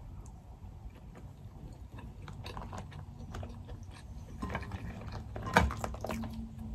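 Eating-close sounds of soft chewing and small clicks, then the crackle and snap of king crab leg shell being broken apart by hand from about four and a half seconds in, with the loudest single sharp crack about a second later.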